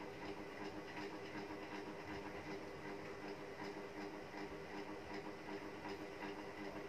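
Steady background hum and hiss of a room, with faint scattered ticks.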